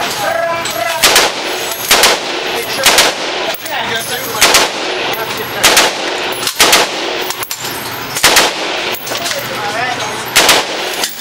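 Gunshots at a shooting range: about ten single shots at uneven intervals, roughly one a second, each sharp and loud with a brief echo.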